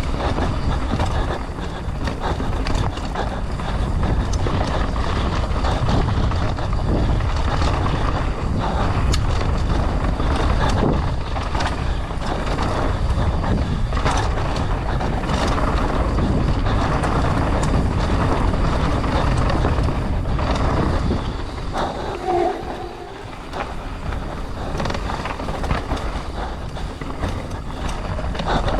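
Mountain bike descending a rough trail at speed: steady wind rushing over the microphone, with frequent knocks and rattles from the bike. It goes briefly quieter about three-quarters of the way through.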